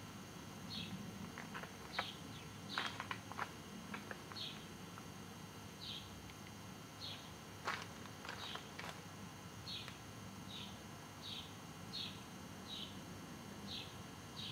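Outdoor ambience with a short, high chirp repeated roughly once a second from a small animal. A cluster of clicks comes about two to three seconds in and again just past the middle.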